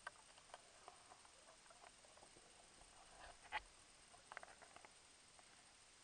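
Faint scattered clicks and taps picked up underwater as the camera on its pole brushes and knocks against reed stems, over a low hiss; the loudest knock comes about three and a half seconds in, with a quick run of taps just after.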